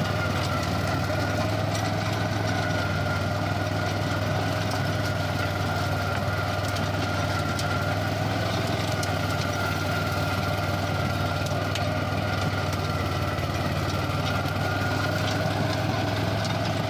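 Swaraj Code mini tractor's single-cylinder diesel engine running steadily while it drives a rear rotary tiller through soil, a low drone with a steady high whine above it.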